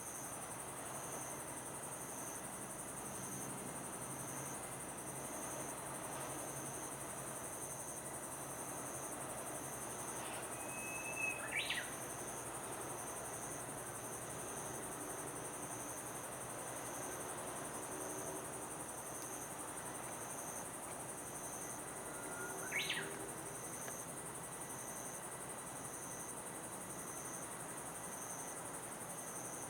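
Insects, crickets by their sound, chirping steadily in a high, pulsing chorus over a low, even background hum. Two short, sharp chirps cut through, one about a third of the way in and one about two-thirds in.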